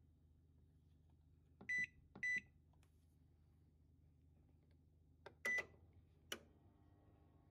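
Microwave-oven range's control panel beeping as it is set: two short high beeps, then a click and a longer beep about five seconds in. A sharp click follows, after which a faint steady tone joins the low appliance hum.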